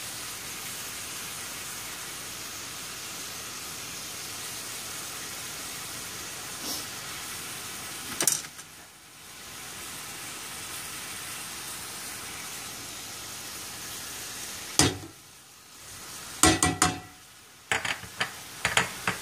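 Chicken pieces sizzling in a skillet over a high gas flame, a steady frying hiss. A sharp knock comes a little before the middle, another later on, and a quick run of clicks and knocks near the end.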